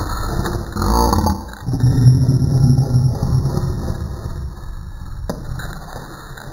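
Small dog's growl played back in slow motion, so it sounds deep and huge: a loud burst about a second in, then a long, low drawn-out growl that fades.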